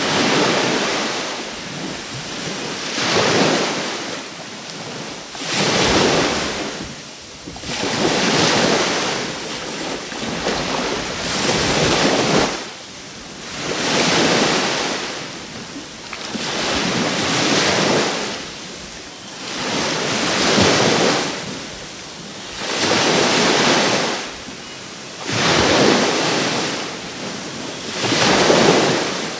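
Waves breaking on a Caribbean shore, a rush of surf that swells and ebbs about every two to three seconds.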